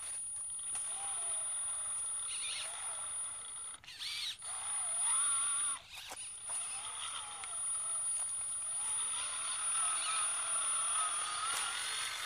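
Electric drive motor and gearbox of a homemade 6x6 RC truck whining under a load of about 6 kg of sand bags. The pitch wavers up and down as it crawls, over a steady high-pitched whine, and the sound breaks off briefly twice.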